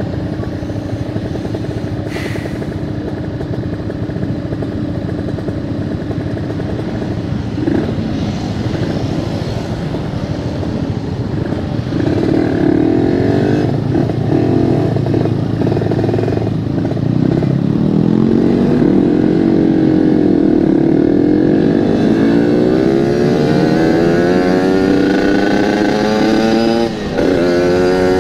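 Yamaha RX-King 135cc single-cylinder two-stroke engine running through a local aftermarket exhaust while the bike is ridden, the revs climbing and falling repeatedly as it accelerates through the gears, with a brief dip near the end at a gear change.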